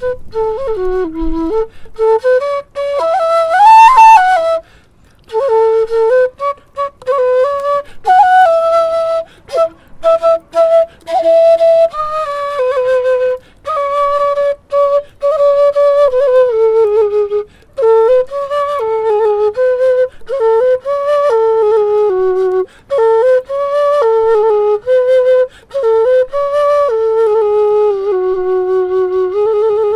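Six-hole bamboo bansuri flute played solo: a slow, free melody of held notes with slides between pitches and short pauses for breath, climbing to its highest, loudest note about four seconds in and ending on a long low note.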